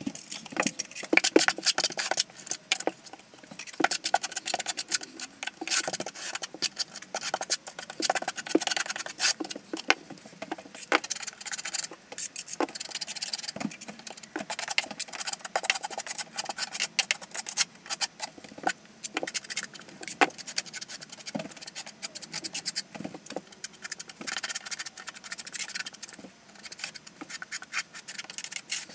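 Steel V-notched trowel scraping thinset mortar onto a backsplash wall in many short, irregular strokes, with sharp clicks as the trowel meets the wall and the mortar.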